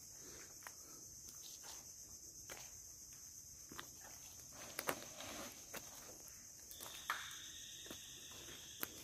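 Steady high-pitched drone of insects, with scattered clicks and snaps of footsteps on mangrove roots and dry fallen branches. A second thinner steady tone joins about seven seconds in.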